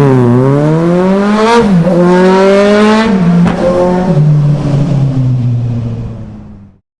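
Motorcycle engine accelerating hard through the gears, its pitch climbing and then dropping at each of several upshifts, then easing off and fading out near the end.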